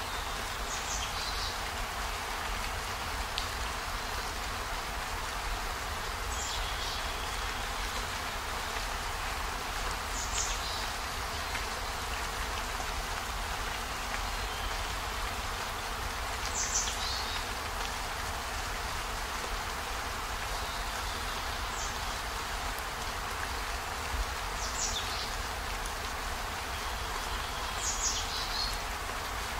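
Steady rain falling, an even hiss, with a brief high chirp every few seconds.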